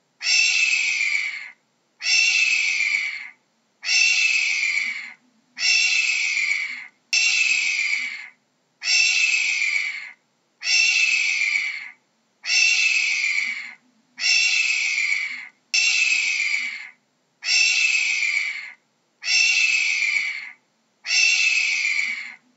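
Hawk giving harsh, hoarse screams that fall in pitch, each about a second and a half long, repeated at an even pace about a dozen times with short gaps between.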